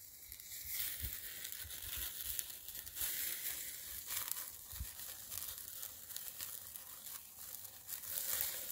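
Whole fish in a wire grill basket sizzling and crackling over very hot charcoal, a steady hiss with many small pops.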